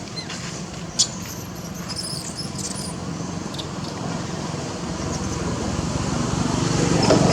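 Steady low rumble that grows louder toward the end, with a sharp click about a second in.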